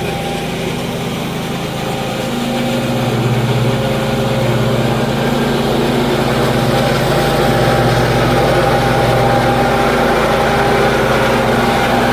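Lawn mower's small gasoline engine running steadily, growing a little louder about two seconds in.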